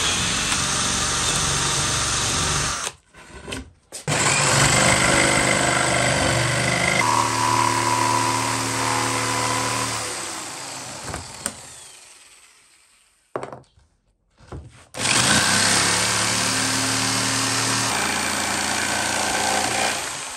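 An electric drill boring a starter hole in plywood, then a corded Bosch jigsaw cutting curves in the plywood. The saw runs in two bursts: it winds down to silence about two-thirds of the way through and starts again a couple of seconds later.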